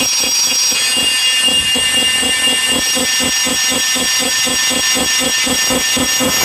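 Black MIDI playback: a huge cluster of synthesized piano notes from a soundfont sounding at once as a harsh, noisy wall of sound, driven by a fast even pulse underneath.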